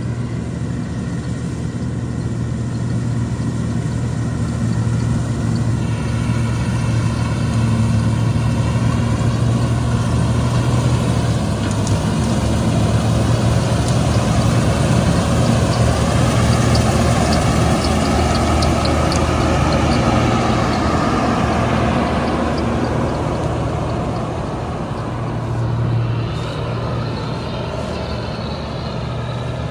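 Combine harvester's diesel engine running at a steady pitch, with the machine's broad working noise swelling through the middle and easing off toward the end.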